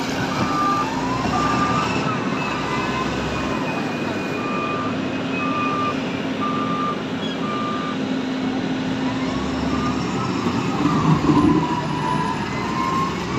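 Diesel engine of a heavy construction machine running steadily, its reversing alarm beeping at a steady pace for the first eight seconds or so, with a whine that rises and falls a few times and a louder stretch near the end.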